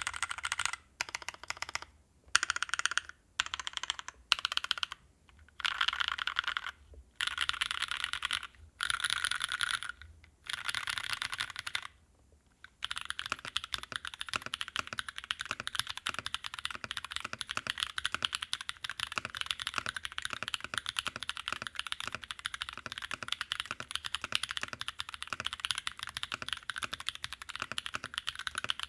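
Mechanical keyboard with Naevy v2 long-pole tactile switches being typed on: short runs of quick key clicks with brief gaps, then, after a short pause about twelve seconds in, steady continuous typing. The first part is the board in a soft 30A o-ring mount and the second in a half-iso gasket mount.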